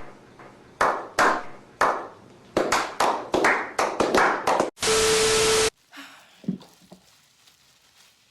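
Sharp hand claps, first about a second apart and then speeding up to several a second, followed by a loud harsh buzz-like burst with a steady tone, about a second long, that cuts off abruptly.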